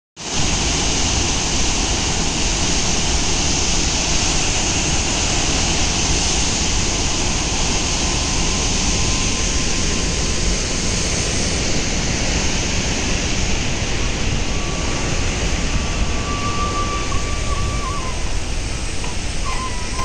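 Gauri Kund waterfall: a silt-laden river plunging into a rock gorge, giving a loud, steady rushing roar of falling water.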